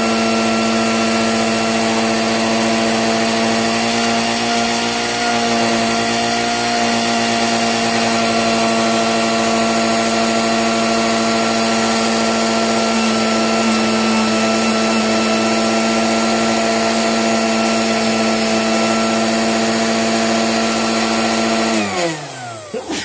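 An electric motor runs steadily at high speed with a constant whine. Near the end it is switched off and spins down, its pitch falling until it stops.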